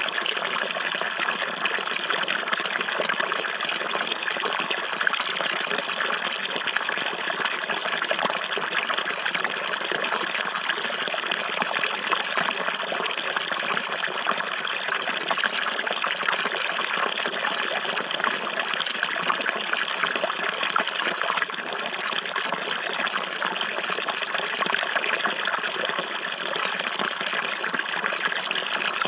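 Running water flowing and trickling steadily, an even splashing with no breaks.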